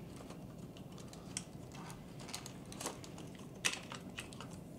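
Faint, irregular light clicks and taps of hands handling an RC truck's plastic chassis and servo wire as the lead is fed through. The sharpest click comes a little past halfway.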